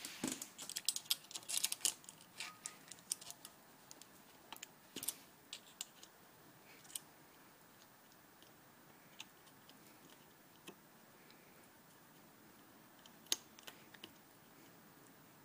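Light metallic clicks and taps from hand tools and small engine parts being handled: a quick flurry over the first few seconds, then a few scattered single clicks.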